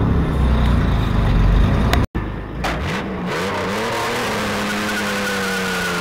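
Chevy S10 pickup driving: low engine and road rumble heard inside the cab, then, after a sudden cut about two seconds in, the truck's engine revving up and settling into a steady note as it drives by, with a steady high whine over it in the second half.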